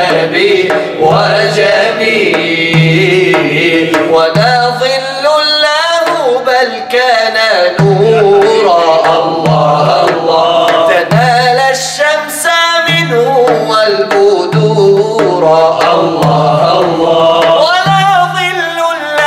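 A man's solo voice singing an Arabic devotional nasheed in long, ornamented melismatic lines, accompanied by hand-drum beats with a recurring low pulse.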